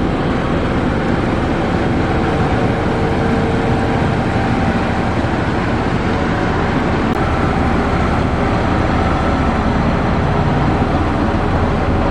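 Diesel engines of a road roller and a motor grader running steadily under load while grading and compacting gravel.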